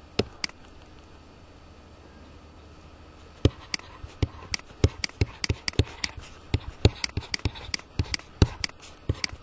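Stylus tip clicking and tapping on a tablet screen while handwriting: two single clicks near the start, then from about three and a half seconds in a quick, irregular run of sharp clicks as the strokes are written.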